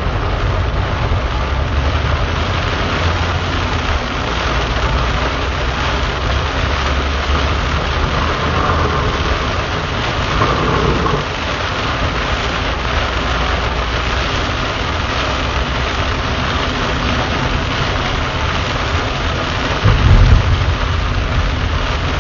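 Heavy rain drumming on a car's roof and windshield, heard from inside the cabin, as a dense, steady hiss over a low rumble. A louder low rumble swells up briefly about twenty seconds in.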